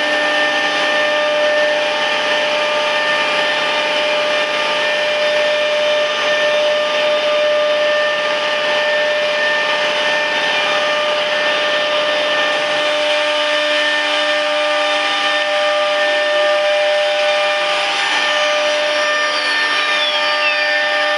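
CNC router running: the spindle's steady high whine over a hiss of airflow and machine noise. The lower rumble drops away about thirteen seconds in, and a falling whine sweeps down near the end.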